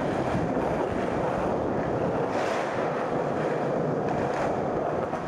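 Skateboard wheels rolling steadily over a smooth floor, a continuous rumble, with a few faint scuffs as the rider pushes.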